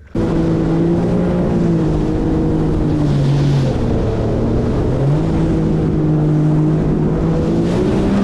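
Yamaha WaveRunner VX Deluxe jet ski engine running at speed over a constant rush of water and wind, starting abruptly. Its pitch drops as the throttle eases off a few seconds in, then climbs back about a second later.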